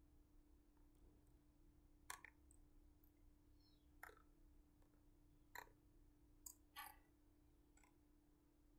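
Quiet, scattered clicks of a computer mouse and keyboard, about six spread over several seconds, over a faint steady hum.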